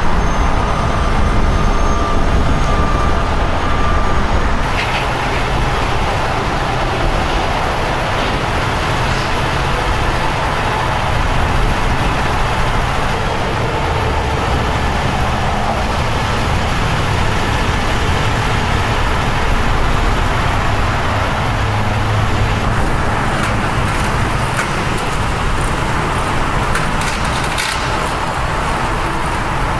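Heavy trucks' engines and freeway traffic running steadily, a constant low rumble with no single event standing out.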